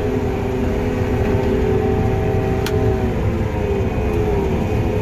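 Combine harvesting corn, heard from the cab: engine and threshing machinery running steadily, with a low rumble under a constant whine, and a single sharp click about two and a half seconds in.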